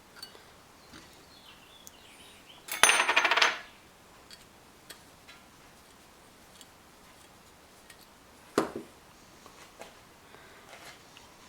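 Small metal faucet parts and tools being handled on a workbench: scattered light clicks, one loud ringing metal clatter about three seconds in, and a single knock near the end.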